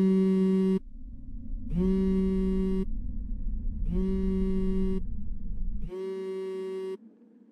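Mobile phone on vibrate buzzing with an incoming call: four buzzes about a second long, one every two seconds, each starting with a slight rise in pitch. The call goes unanswered.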